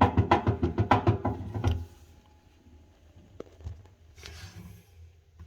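A quick run of clicks and knocks from the top-load washing machine's drum parts being moved by hand, about six a second, stopping after about two seconds, followed by faint handling sounds.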